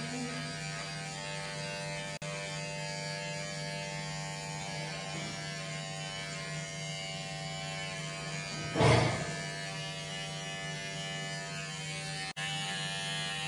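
Electric hair trimmer buzzing steadily as it cuts hair, with one brief louder burst of noise about nine seconds in.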